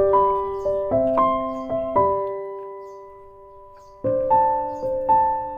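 Background piano music: a slow run of single notes and chords, each struck and left to fade, with a pause of about two seconds midway.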